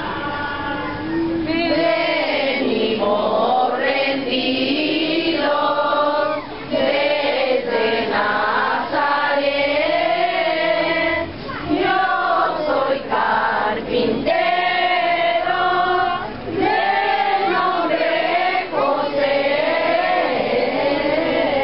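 Group of people singing a posada song together, in phrases about two seconds long with short breaks between them.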